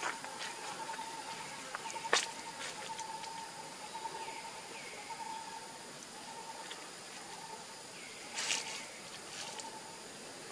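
Outdoor ambience: a faint wavering tone that keeps breaking on and off, with a few small chirps and scattered light clicks. There is a sharp click about two seconds in and a short burst of hiss-like noise about eight seconds in.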